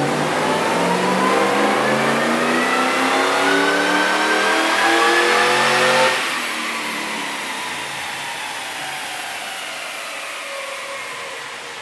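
Supercharged V8 at full throttle on a chassis dyno, revving up steadily for about six seconds to around 5,500 rpm, where the belt is slipping badly. The throttle then closes suddenly and the engine winds down with a slowly falling pitch.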